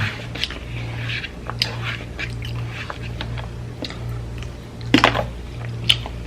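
Close-up eating sounds: wet chewing and mouth smacks, with short sharp crunch-like clicks, the loudest about five seconds in. A steady low hum runs underneath.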